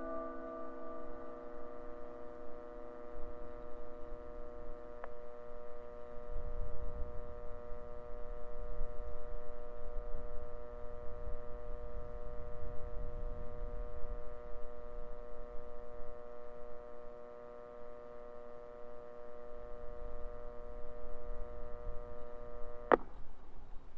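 An outdoor public-address loudspeaker of an old analog disaster-prevention radio system gives a steady electrical hum after the chime's last notes die away, with a click about five seconds in. A sharp click near the end cuts the hum off as the channel closes. A low rumble sits underneath through the middle.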